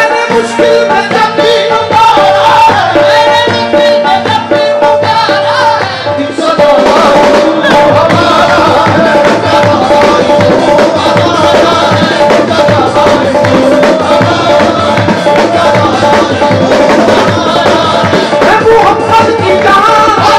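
Live qawwali music: tabla drumming under a harmonium and male singing. A held harmonium note carries the first six seconds. After a brief lull the drumming grows denser.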